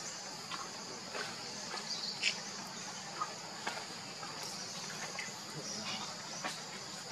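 Steady high-pitched insect chorus droning in the background, with a few short sharp clicks scattered through it.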